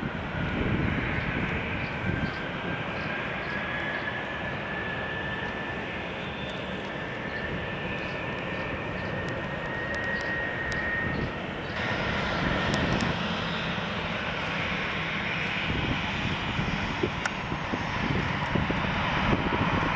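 Boeing 737 turbofan engines running at taxi power as the jet rolls slowly past, a steady jet rumble with a high whine that rises slightly in pitch over the first half.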